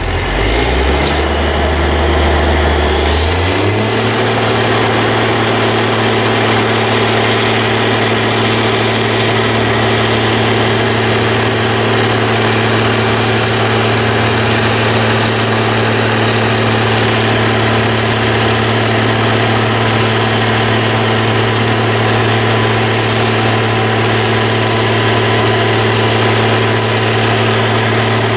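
Diesel engine of a truck-mounted crane speeding up about a second in and settling within a few seconds into a steady, higher running speed.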